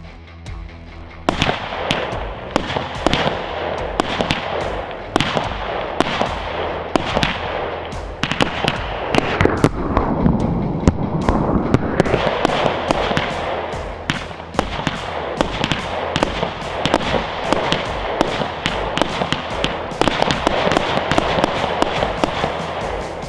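Weco 'Final Countdown' 72-shot consumer firework battery firing: a rapid, continuous string of shots and crackling bursts that starts about a second in.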